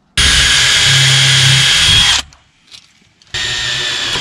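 Power drill driving screws into wood in two bursts of about two seconds each, with a steady motor whine.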